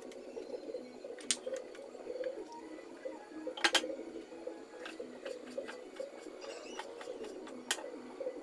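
Cooking oil heating in an aluminium wok over a gas burner: a faint steady sound with a few sharp clicks, three of them louder than the rest.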